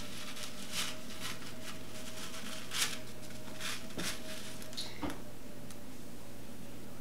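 Soft, scattered rustles and crunches of crushed cornflakes as cornflake-coated chicken pieces are handled and threaded onto a wooden skewer, over a faint steady hum.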